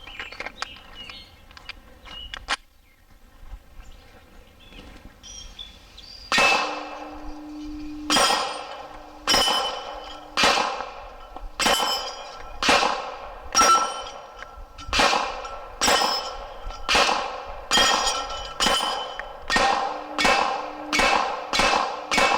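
Glock 26 9mm pistol firing 147-grain polymer-coated handloads at about 950 feet per second. It fires a steady string of shots, about one a second, starting a few seconds in, and each shot is followed by ringing clangs from steel targets being hit.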